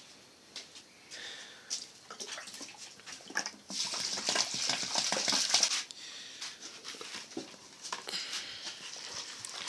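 Water poured from a jug into a plastic basin of chopped leafy greens, a rushing splash about four seconds in lasting some two seconds, then a hand swishing and sloshing the greens in the water near the end.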